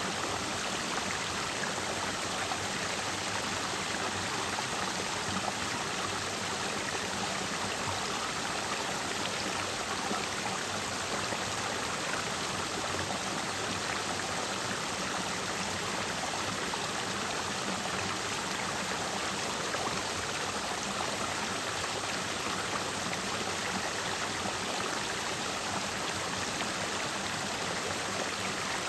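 Clear mountain stream flowing over and between rocks: a steady, even rush of water.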